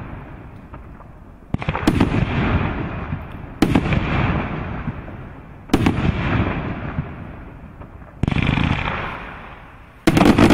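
A multi-shot fireworks cake firing aerial shells, a sharp bang about every two seconds, each fading out over a second or two. Near the end comes a louder, dense run of cracks.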